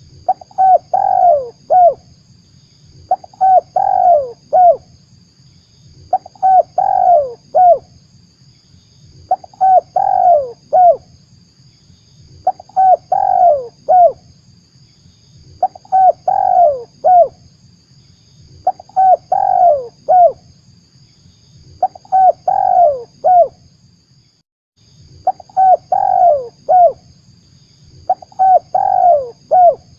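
Spotted dove (tekukur) cooing: a short phrase of several falling coos repeated about every three seconds. This is a recorded lure call used to attract wild doves. A faint low hum runs underneath, and everything cuts out briefly near the end.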